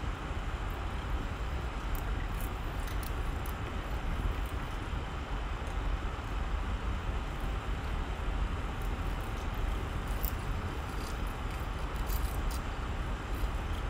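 Broth boiling in a stainless-steel pot: a steady bubbling rumble with scattered small pops.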